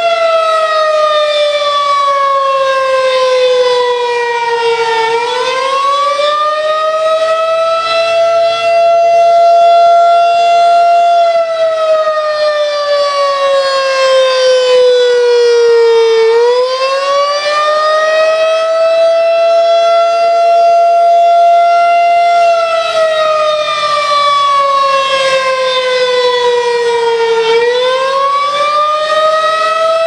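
Federal Signal 2001-DC twelve-port rotating civil defense siren sounding loudly. Its pitch slides down over several seconds, climbs back up and holds briefly, three times, about every eleven seconds.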